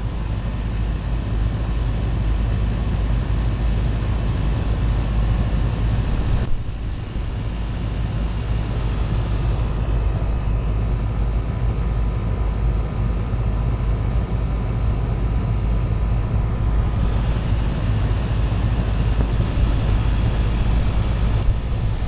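Central air conditioner's outdoor condensing unit running close up: a steady hum from the compressor and condenser fan. The technician finds nothing wrong with the unit itself and takes it to be doing all it can.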